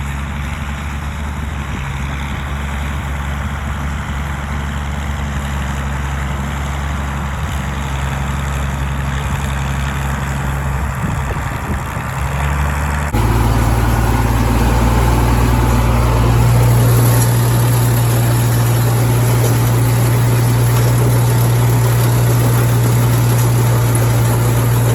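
International Harvester 826 Hydro tractor's engine running steadily. About halfway through the sound changes abruptly, becoming louder with a slightly deeper hum.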